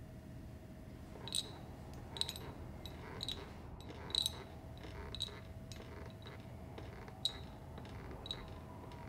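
A faint steady hum with a series of sharp, light clicks about once a second, somewhat irregular, starting about a second in.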